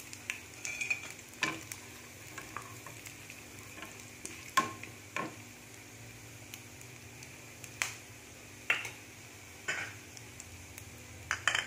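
A wooden spatula stirring dried red chillies and whole spices frying in oil in a non-stick pan, the tempering stage of a chutney. A faint steady sizzle runs under a dozen or so scattered knocks and scrapes of the spatula against the pan.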